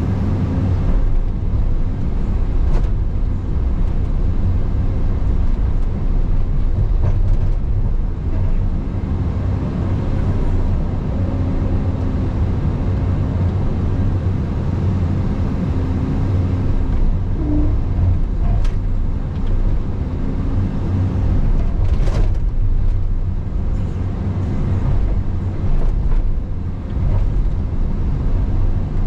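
Caterpillar 335 Next Gen hydraulic excavator's diesel engine running steadily under work, with a few sharp knocks, the loudest about 22 seconds in.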